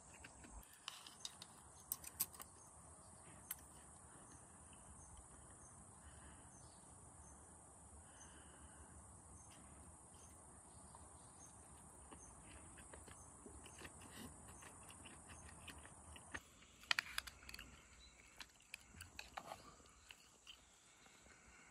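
Faint, steady high-pitched chirring of insects such as crickets, with a few scattered small clicks and knocks, a cluster of them about 17 seconds in.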